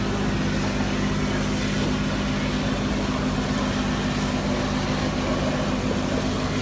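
Heavy construction machinery's diesel engine running steadily: an unbroken drone with a constant low hum over a noisy background.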